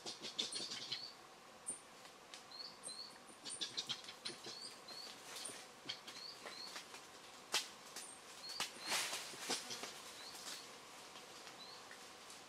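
Coatis chirping in the treetops: short high chirps with a rising hook, often in pairs, repeated every second or so. Rain drips and patters through the wet leaves, with a few brief rustles of branches.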